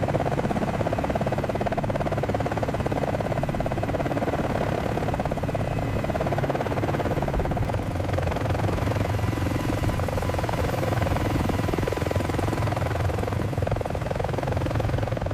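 CH-53K heavy-lift helicopter hovering low, its rotor running steadily with a fast blade chop over a constant turbine noise.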